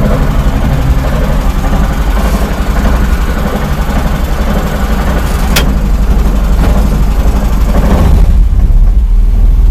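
Homemade self-propelled tractor's engine running while it drives over rough ground, with rattling from the chassis and a sharp click about five and a half seconds in. About eight seconds in the rattle dies away, leaving the engine's low drone.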